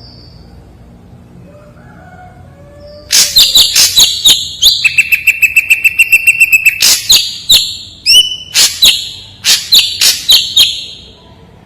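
Ashy drongo singing: after a few quiet seconds, a loud run of sharp, high notes, including a fast rattling trill of about ten notes a second over a steady high whistle, with one quick up-and-down whistled note in the middle. The song stops shortly before the end.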